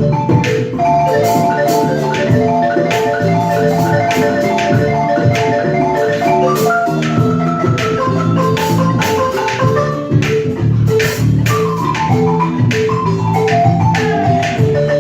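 Live West African ensemble playing: a balafon (wooden xylophone) plays fast, rippling melodic runs over sharp, steady hand-drum strokes.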